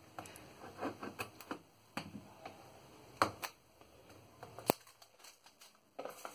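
Clear plastic shrink-wrap being slit and peeled off a product box by hand: scattered light clicks, taps and crinkles, with one sharp click about three-quarters of the way through.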